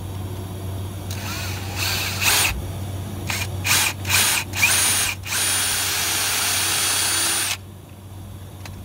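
Power drill boring a stop-drill dimple into the aluminium lower unit of an Evinrude outboard, at the end of a crack to keep it from spreading before welding. The drill runs in several short bursts, then in one steadier run of about two seconds that stops near the end.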